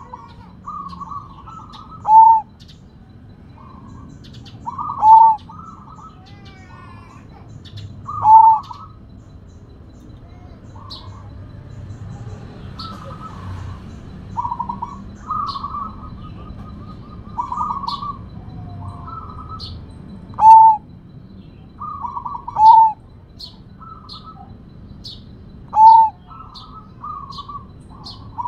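Sumbawa zebra dove (perkutut) singing: repeated phrases of rolling coos, six of them ending in a loud, clear falling note. The loud phrases come at intervals of a few seconds, with a quieter stretch of softer coos in the middle.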